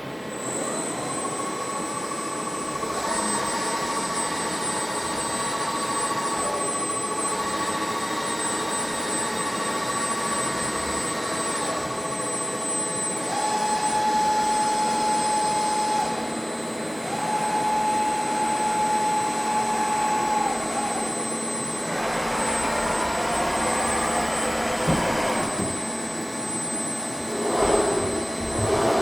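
TOS WH-105 horizontal boring mill, retrofitted to CNC, running. A steady high whine holds throughout, while motor whines start, stop and step between pitches every few seconds. There is a rougher, noisier stretch a little past the middle and a rising glide near the end.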